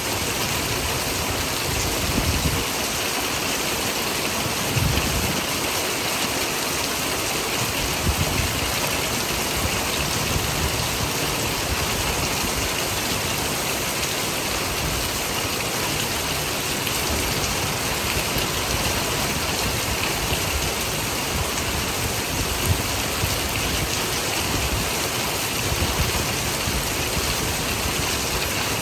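Steady rain pouring down, with a few brief low thumps now and then.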